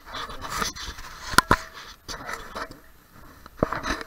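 Footsteps crunching and scraping through dry fallen leaves, irregular. Sharp knocks twice about a second and a half in and once more near the end.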